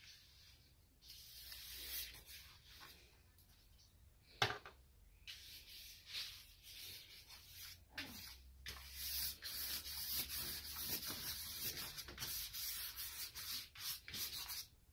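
Bristles of a flat paintbrush loaded with acrylic paint scraping across a large sheet of cartridge paper taped to a wall, as soft, scratchy strokes. The strokes come short and separate at first, then run almost unbroken from about nine seconds in. A single sharp tap sounds about four and a half seconds in.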